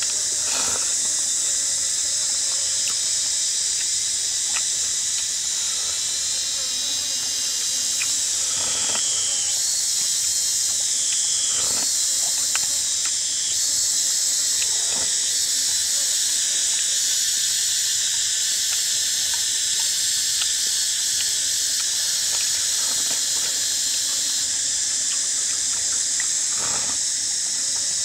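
Steady, high-pitched chorus of insects buzzing, with a few short faint clicks.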